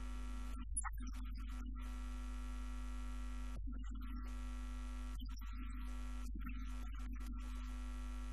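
Steady electrical mains hum, with faint sustained tones held above it at an even level.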